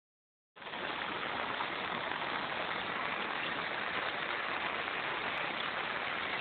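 Steady rain falling, an even hiss that cuts in about half a second in and holds level.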